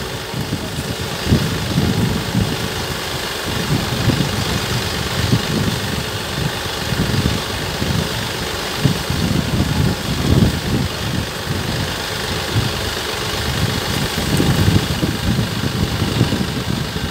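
Tractor engine running steadily as it drives a mounted crop sprayer through sugarcane, with a continuous hiss over the engine's low pulsing sound.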